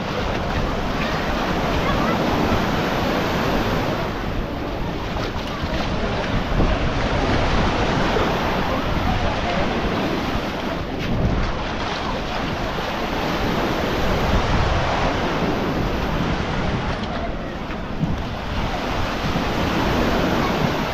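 Baltic Sea surf washing onto a sandy beach: a steady rush of breaking waves that swells and eases. Wind buffets the microphone.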